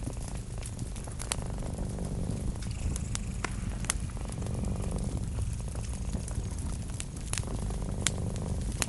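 Wood fire crackling, with a handful of sharp pops scattered through, over a steady low purring rumble from a cat.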